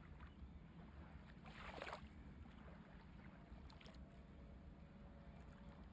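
Near silence: a faint low rumble with one brief soft swish about one and a half seconds in.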